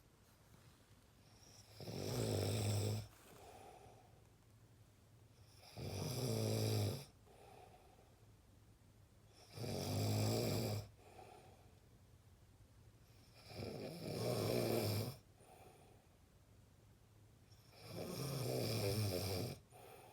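A person snoring in a steady rhythm: five loud snores about four seconds apart, each lasting about a second, with a faint breath between them.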